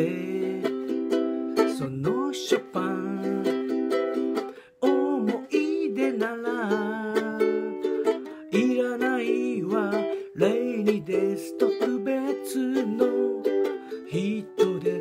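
Ukulele strummed steadily, playing chords and melody through an instrumental passage.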